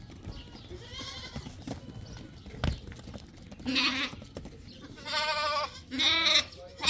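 Sheep bleating: a faint call about a second in, then three louder, quavering bleats in the second half, with a single knock in between.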